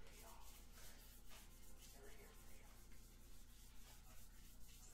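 Near silence: faint rustling and sliding of trading cards being handled and flipped through, over a low steady room hum.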